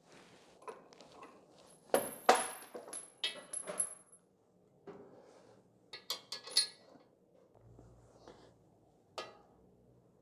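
Scattered metallic clinks and knocks of hand tools and bolts on the metal tool changer support arm as it is being bolted to the mill column, in a cluster about two seconds in, another around six seconds, and a single clink near the end.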